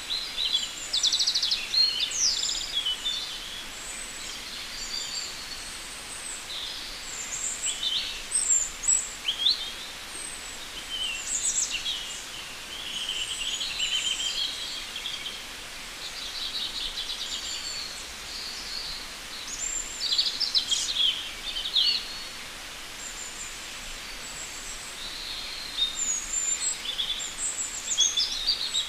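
Several birds calling and singing at once: a busy mix of short chirps, whistles, quick sweeps and trills, in clusters throughout, over a steady faint background hiss.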